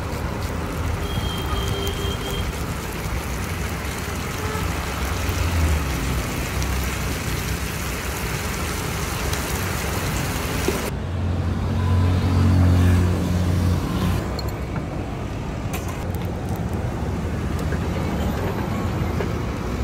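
Street traffic noise: a steady rush of passing road vehicles. A little past halfway the high hiss drops away abruptly and a vehicle engine's low drone swells for a few seconds.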